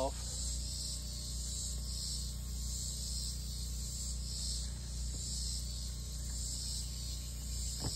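Chorus of insects buzzing in the trees, swelling and fading in pulses about once a second, over a steady low hum.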